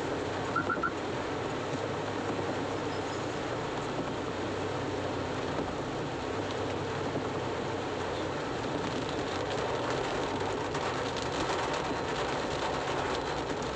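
Heavy rain on the car's roof and windscreen, heard from inside the moving car, with tyres hissing on the flooded road: a dense, steady rush. About a second in, a vehicle gives a quick triple beep.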